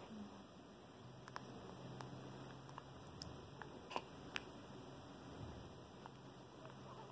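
A newborn baby sucking on its fist: faint, scattered wet clicks and smacks over a quiet, steady room hum.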